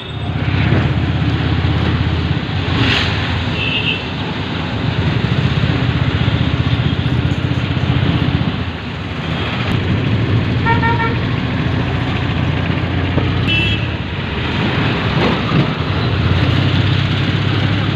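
Auto-rickshaw engine running steadily as a low rumble while riding in traffic, heard from inside the open cab. Vehicle horns honk briefly about three times.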